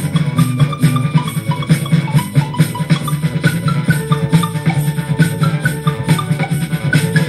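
Music with a steady beat: percussion over a strong bass line, with short higher melodic notes.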